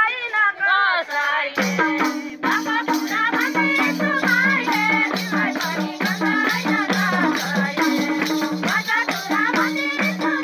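Women singing a Nepali rateuli folk song together, with a hand-held tambourine's jingles shaken and struck in a steady beat. A low two-note accompaniment comes in about a second and a half in.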